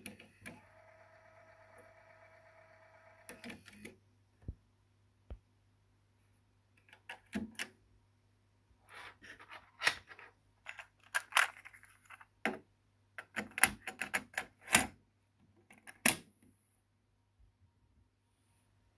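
A steady whir for about three seconds, then a run of sharp plastic clicks and clacks as a cassette is loaded into the cassette deck's tilt-out holder and the holder is pushed shut.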